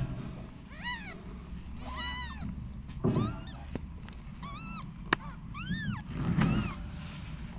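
Newborn kittens mewing: a series of short, thin, high mews that rise and fall, about one a second. Two low thumps, about three and six seconds in, are the loudest moments, and a sharp click comes about five seconds in.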